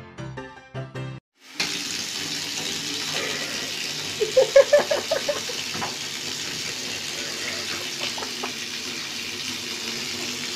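Water running steadily into a bathtub, with a kitten crying in a quick run of short, loud mews about four seconds in and a few fainter ones later. Before that, a few notes of piano music stop suddenly about a second in.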